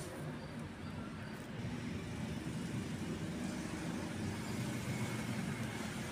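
Steady low rumble of a running motor-vehicle engine.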